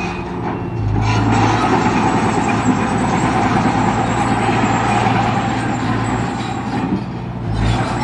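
Komatsu D20P crawler bulldozer's diesel engine running steadily under load, easing off briefly just after the start and again about seven seconds in.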